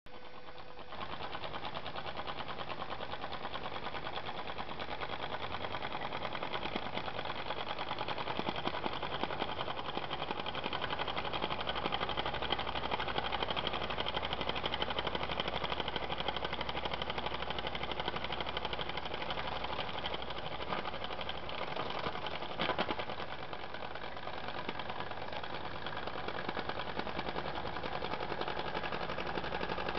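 Small brass model steam engine with two cylinders in a V running fast and steadily, its exhaust beats coming as a rapid even chuffing. About two-thirds of the way through there is a brief louder surge.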